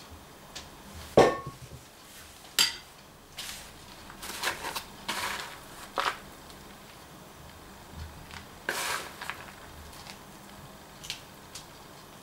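A metal spoon clinking and knocking against dishes, with one sharp clink that rings briefly about a second in and another soon after, then scattered softer taps and rustles as chopped walnuts are handled from a plastic tub.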